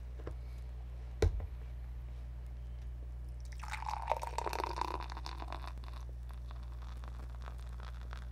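A single sharp knock about a second in, then canned Taiwan Beer glugging into a glass for about two seconds, followed by the foam head fizzing and crackling as it settles.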